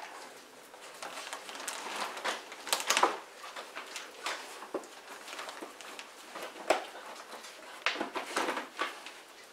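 A litter of puppies playing on tile and rag rugs: scattered scuffling, claw clicks and rustles, with sharper knocks about three seconds in, again past halfway, and in a cluster near the end.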